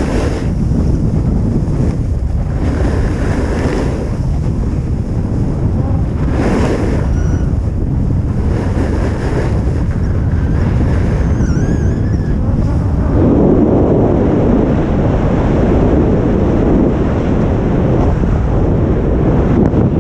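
Wind rushing over a GoPro action camera's microphone at speed down a ski slope, a steady low rumble. Under it is the hiss and scrape of edges on packed snow, which swells with each turn and gets rougher about two-thirds of the way through.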